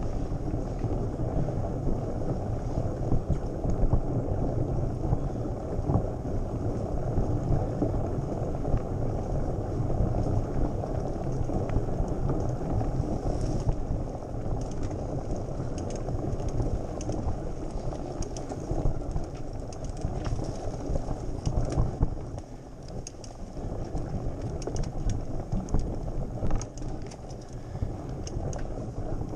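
Mountain bike riding up a rough dirt trail, heard through its handlebar-mounted camera: a steady low rumble of tyre and frame vibration with wind on the microphone and scattered light rattles.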